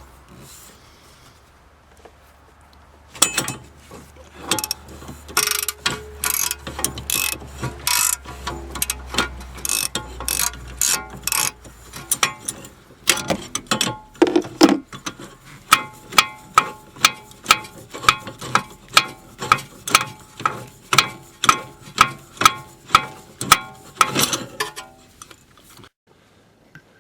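Ratchet turning a half-inch-drive inner tie rod socket, clicking with each stroke as the inner tie rod is unscrewed from the steering rack. The strokes are uneven at first, then settle into a steady rhythm of about two clicks a second, and stop near the end.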